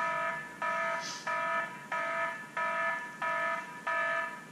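Mobile phone ringtone: a chime of several stacked tones repeating about one and a half times a second, each chime fading before the next. It stops near the end.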